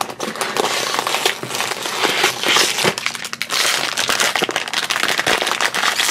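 Foil blind bag crinkling and crackling, a dense continuous rustle as it is handled and torn open.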